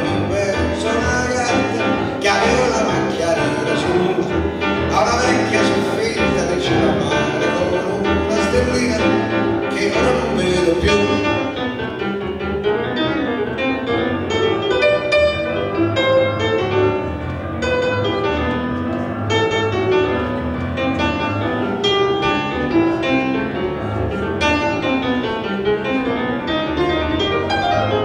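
Grand piano playing a solo interlude, with fuller, brighter chords for the first ten seconds or so and then a lighter line of notes.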